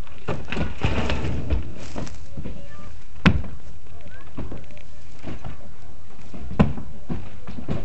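Hand demolition of an old brick-and-timber house wall: two sharp knocks about three seconds apart among smaller knocks and the clatter of broken plaster and rubble.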